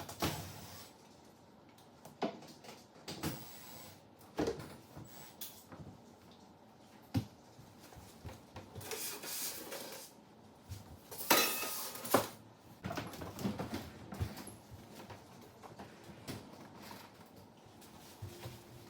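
Irregular clicks, knocks and short scrapes of screws and sheet-metal panels being handled while an electric range is taken apart. The loudest scraping bursts come about two-thirds of the way through.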